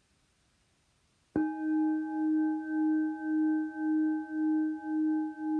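Crystal singing bowl struck once about a second and a half in, then ringing on with a steady wavering pulse about twice a second.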